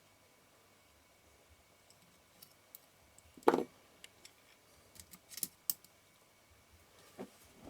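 Sparse small clicks and one louder knock about three and a half seconds in, from handling the metal parts of an Ai-Nikkor 135mm f/2 lens and small tools during reassembly.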